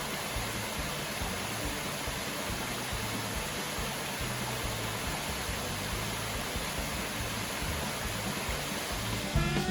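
Helton Creek Falls: a waterfall rushing, a steady, even hiss of falling water. Music with drums comes in right at the end.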